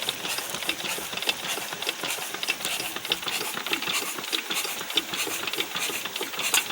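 A freshly repaired 16 HP Peter Dixon diesel engine running with a steady, rapid, regular knock.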